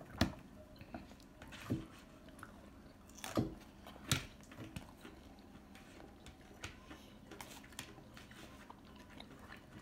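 Close-up eating sounds of pan-fried dumplings (potstickers): chewing and biting, with sharp clicks of a fork against the plate. The loudest clicks fall in the first half, followed by softer, sparser ticks.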